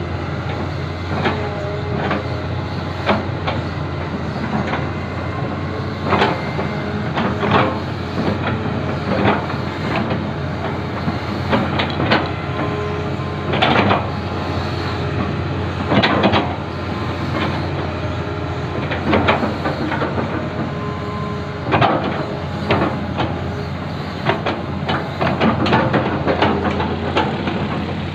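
Excavator's diesel engine running steadily, with irregular metallic clanks and knocks every second or two.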